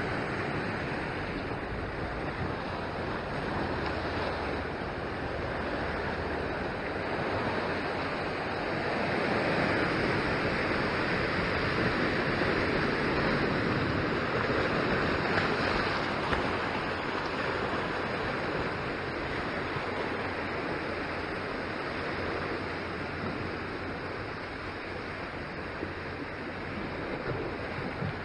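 Sea waves surging and washing over the rocks below, a steady rush that swells louder in the middle and eases toward the end.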